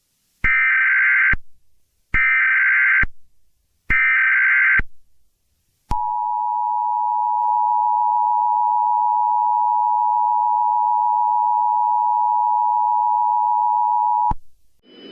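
Emergency Alert System alert tones: three short screeching data bursts of the SAME header, then the steady two-tone attention signal held for about eight seconds before it cuts off. They mark the start of a new emergency alert.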